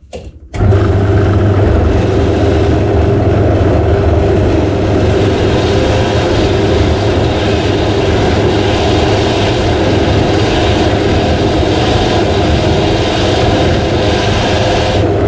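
A cheap power tool's electric motor running steadily, spinning the metal brush of a homemade bicycle chain cleaner as the chain is scrubbed against it. It starts about half a second in.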